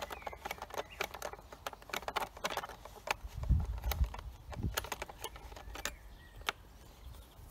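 Metal T-handle tool turning and clicking in the screws of a Husqvarna 236 chainsaw's plastic top cover as they are undone: irregular light clicks and scrapes, with a couple of dull knocks about three and a half seconds in.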